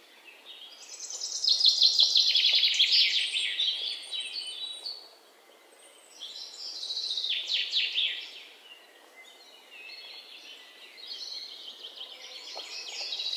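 Small birds chirping and twittering in rapid trills. The song comes in bursts that swell and fade, loudest about two seconds in, with quieter spells between.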